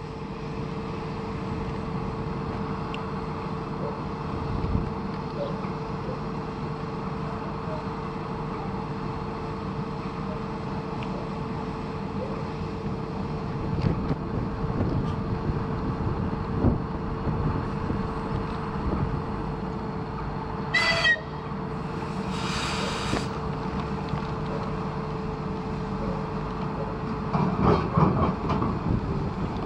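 ER2K electric multiple unit standing at the platform with a steady hum. About 21 s in comes a short high whistle, then a brief hiss. Near the end there are several knocks as the train starts to move off.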